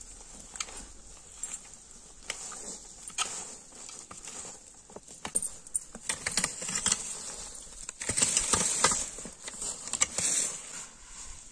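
Dry fallen leaves rustling and crackling as pitchforks scoop and toss them onto a pile, in irregular bursts with a busier stretch about eight seconds in.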